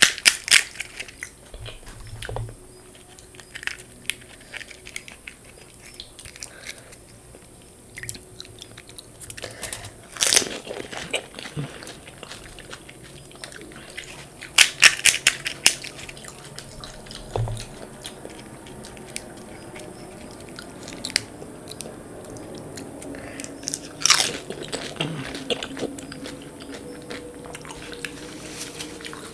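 Crisp fuchka (pani puri) shells being bitten and crunched close to the microphone, with chewing between bites. There are loud crunches in clusters about ten, fifteen and twenty-four seconds in.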